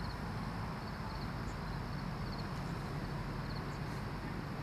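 Steady low rumble of distant diesel freight locomotives working upgrade, faint and unchanging.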